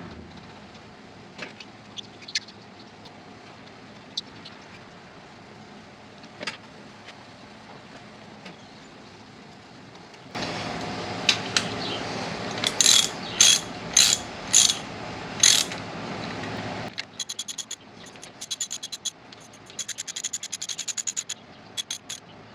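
Socket ratchet wrench running down the bolts of a tractor's hydraulic lift cylinder cover: scattered light metal clicks, a stretch of steadier noise with five loud rasps, then quick runs of ratchet clicks near the end.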